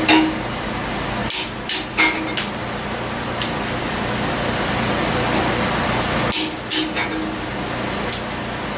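Torque wrench on a Ford 460 big-block's cylinder-head bolts, tightened at the 105 ft-lb step: sharp metallic clicks and clinks as the wrench reaches its setting and the socket goes onto the next bolt. The clicks come in two clusters, about a second in and about six seconds in, with single clicks between them, over a steady background noise.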